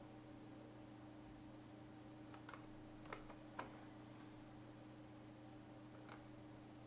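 Near silence with a faint steady hum, broken by a handful of faint computer mouse clicks.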